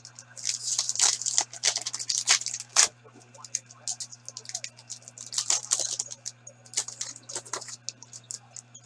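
Hockey card packs being torn open and the cards handled: bursts of crinkling and tearing wrapper with sharp little clicks, in three or so clusters, over a steady low electrical hum.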